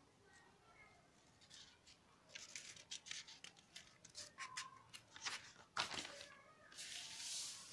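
Paper notebook pages being handled and turned: a run of crisp crackles and ticks through the middle, then a short swishing rustle near the end as a page is flipped over.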